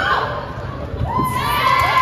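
Teenage girls' volleyball players and spectators shouting and cheering as a rally ends with the point won. The cheer swells a little over a second in and is held.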